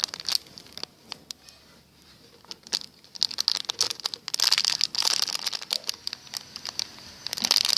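Plastic packaging crinkling as it is handled: a few scattered clicks, then longer bursts of crackling about three seconds in and again near the end.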